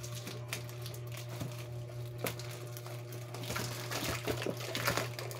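Scissors snipping through plastic wrapping around a bottle, with the plastic crinkling. A few separate clicks come first, then denser rustling toward the end, over a steady low hum.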